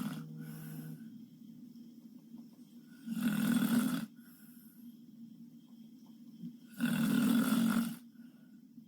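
A woman snoring while sleeping on her back: two snores, each about a second long and roughly four seconds apart. It is heavy snoring that the listener takes for sleep apnea.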